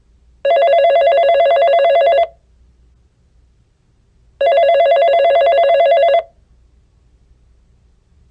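Electronic telephone ringer ringing twice: a fast warbling trill, each ring about two seconds long, with a pause of about two seconds between them.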